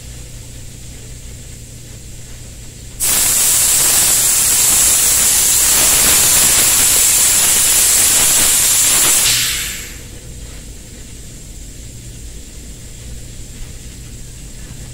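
Compressed-air gravity-feed spray gun spraying: a loud, steady hiss that starts abruptly about three seconds in, runs for about six seconds, then tapers off.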